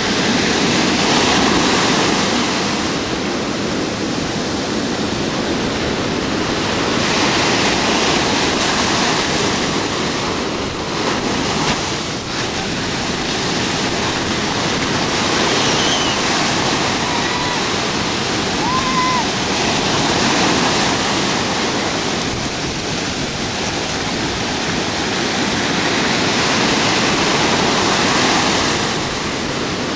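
Ocean surf breaking and washing in shallow water, a steady rushing that swells and eases every several seconds as waves come through.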